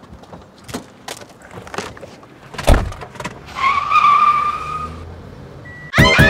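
Car door handling: a few clicks and knocks, with a door slamming shut about two and a half seconds in, then a short high squeal lasting about a second and a half. Music comes in at the very end.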